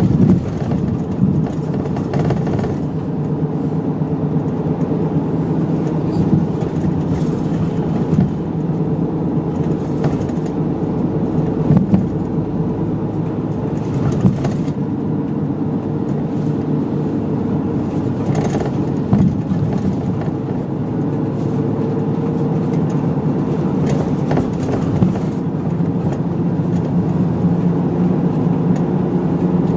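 Medium-size diesel route bus heard from inside the cabin while driving: a steady engine hum with road noise and a few short rattles.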